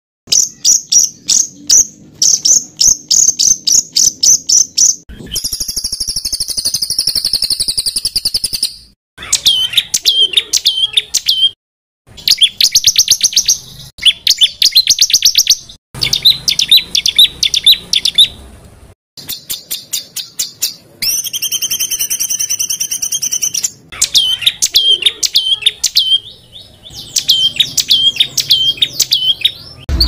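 A small songbird singing fast runs of sharp, high repeated notes, about eight or ten a second. The runs alternate with a buzzy trill and with series of hooked whistles. The phrases are spliced together with abrupt cuts and brief silences, as in a masteran tutor-song recording for training cage birds.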